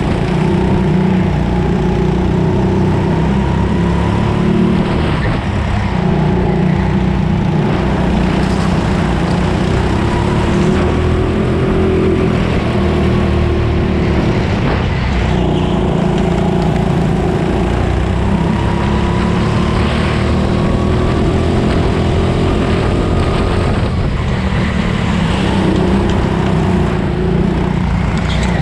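Onboard sound of a racing go-kart at speed: a loud, steady rumble with the motor's pitch rising and falling every few seconds as it slows for the corners and speeds up again.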